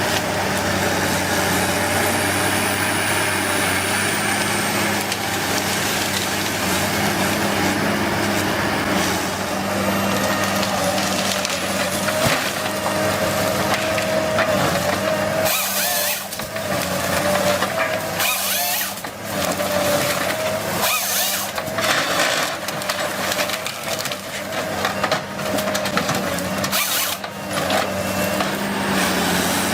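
Woodworking machine running with a steady hum while wood cracks and splinters as it is worked, with several short sharp bursts in the second half.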